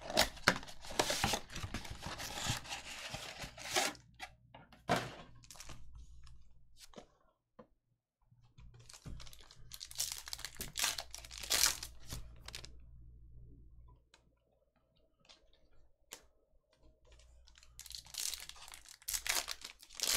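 Trading-card box and its foil pack wrappers being handled and torn open by hand: crinkling and tearing in three spells, at the start, about ten seconds in and near the end.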